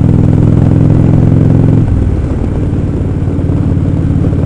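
Indian Roadmaster's Thunder Stroke V-twin engine running under way, with wind rush. About two seconds in, the engine note changes and gets a little quieter.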